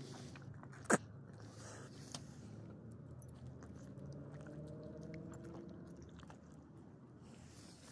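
Small dog eating from a hand, chewing and licking with quick soft mouth clicks. One sharp click about a second in is the loudest sound.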